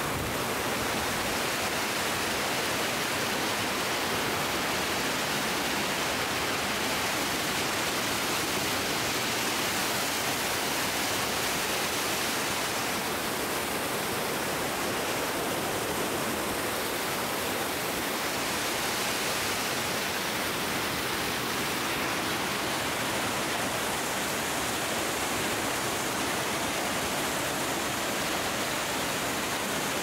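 Water rushing and tumbling over rocks in a small waterfall cascade, a steady, unbroken rush.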